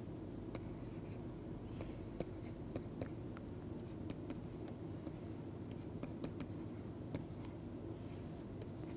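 Stylus writing on a tablet screen: a string of light, irregular taps and clicks as an equation is handwritten, over a steady low hum.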